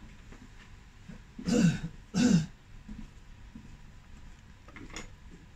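A person clearing their throat with two short, harsh coughs about half a second apart.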